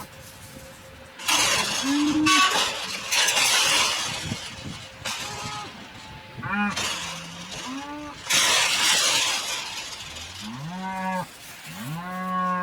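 Cattle mooing: a series of short calls, then two longer, steadier moos near the end. Between the calls come several loud stretches of rushing noise.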